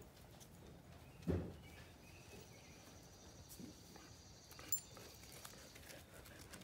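Faint tapping of a hen pecking grain off a concrete path, with one louder low thump about a second in.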